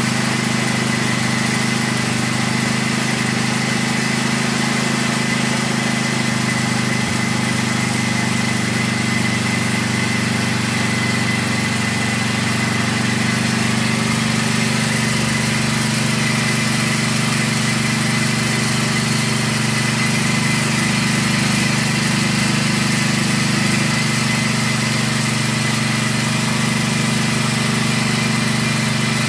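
Motor-driven, mincer-type screw grinding mill running steadily under load as it grinds fried peanuts and chillies into pecel sauce paste: a steady machine drone with a thin whine above it.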